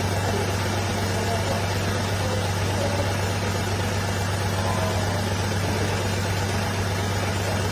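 A car engine idling steadily with an even low hum.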